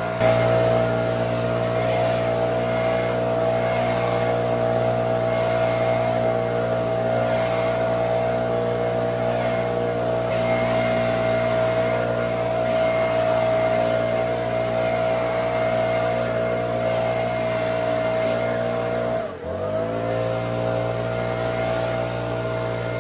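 Gas backpack leaf blower running steadily at full throttle. About 19 seconds in, the revs dip briefly and pick straight back up.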